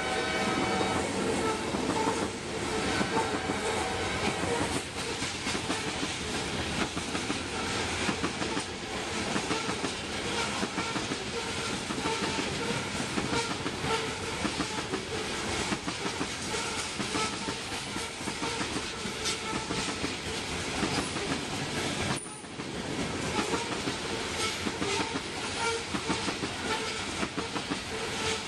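Coal train's hopper cars rolling past at track side: a steady rumble with wheels clacking over the rail joints. A locomotive horn chord sounds in the first few seconds and fades away.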